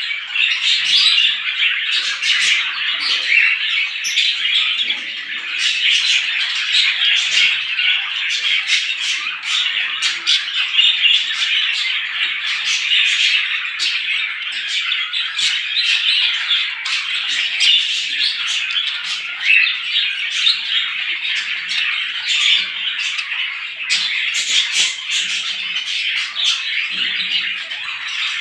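A flock of many small birds chirping and chattering together in a dense, continuous morning chorus of sharp, overlapping chirps.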